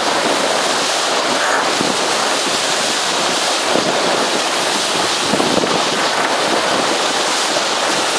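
Steady rush of wind buffeting the microphone over water hissing past the hull of a J/70 sailboat under sail.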